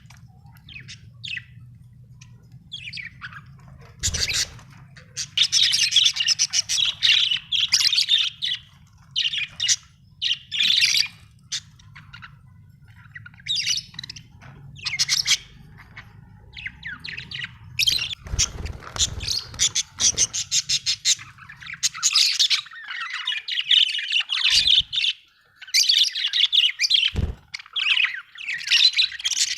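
Budgerigars chirping and warbling in rapid, high bursts of chatter, broken by short pauses. A low hum runs underneath and stops about two-thirds of the way through, and a few dull thumps come between the calls.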